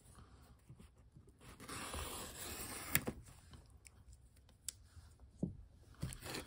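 Paper seal on a cardboard box being cut and torn open: a soft rasping with a few sharp clicks.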